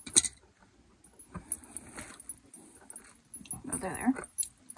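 Light metal clicks and clinks of drum-brake shoes and their hardware being fitted by hand on the backing plate, with a sharp click just after the start. A short whine about four seconds in.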